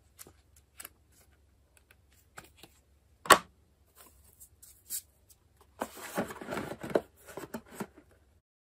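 Handling noises of unboxing: paper and cardboard packaging rustling, with a single sharp tap about three seconds in and a longer stretch of rustling near the end as the boxed mini PC is lifted out of its foam-lined box.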